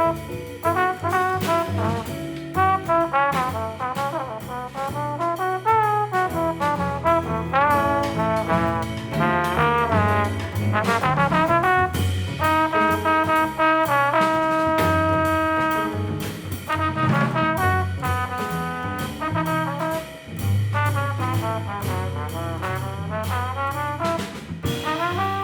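Jazz quartet playing live: a trombone carries the melody, with a long held note about halfway through, over guitar, bass and drum kit.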